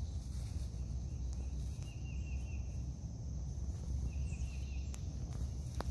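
Outdoor ambience: a steady high insect drone and a short rapid trill heard three times, over a low rumble on the microphone, with a couple of faint clicks near the end.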